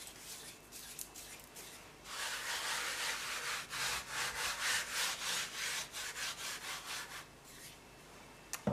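A hand rubbing flour over the surface of a sheet of laminated croissant dough, a run of dry swishing strokes starting about two seconds in and stopping shortly before the end. A short knock comes near the end.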